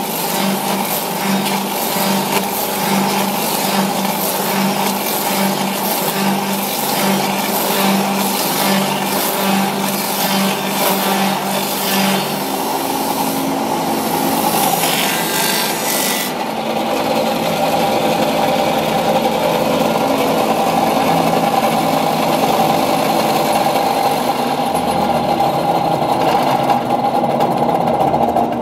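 FK-2 copy-milling woodworking machine running, its cutter milling two wooden blanks into handles with a high rasping hiss that pulses about once a second. About two-thirds of the way through the hiss drops away, leaving the machine's steady running hum.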